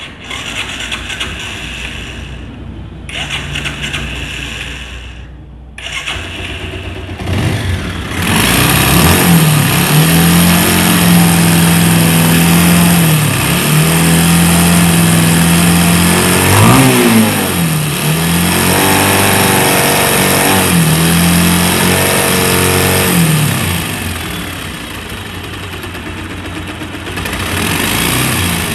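Bajaj Pulsar's single-cylinder engine running. After a quieter first few seconds, it is revved hard and held up, dropping back and rising again several times before settling lower near the end. The engine sound is rough and bad, with vibration under revs, and the owner says it stumbles between 3,000 and 4,500 rpm as if starved of fuel.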